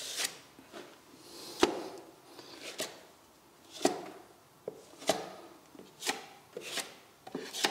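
Wide steel plastering knife scraping and tapping on a plastered wall while ready-mixed finishing plaster is smoothed on. About ten short strokes come roughly a second apart, each starting with a sharp click.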